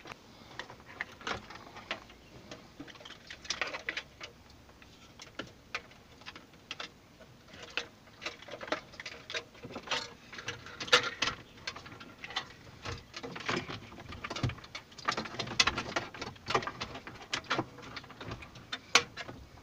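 Irregular clicks, taps and rustling of plastic connectors and a bundled wire harness being handled, as a double-DIN head unit is lifted and fed into the dash opening.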